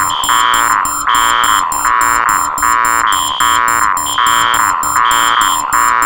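Four electronic alarm sounds playing together in a continuous loop. A beeping tone pulses about twice a second, a higher tone sounds about once a second, and a rapid, very high-pitched beeping runs over both.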